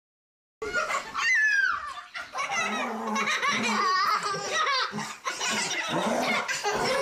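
Young children laughing, with quick rising and falling squeals, starting abruptly about half a second in after dead silence.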